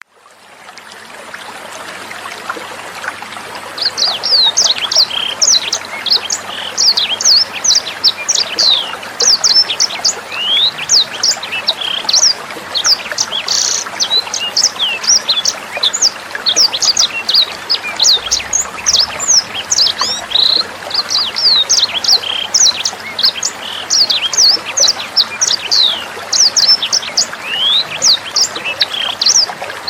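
A sanger bird singing in rapid, high, sharp sweeping notes, many a second, starting about four seconds in, over a steady trickle of running water that fades in at the start.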